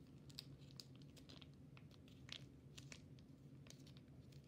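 Faint, scattered small clicks and crackles of slime and its plastic tub being handled, over a low room hum.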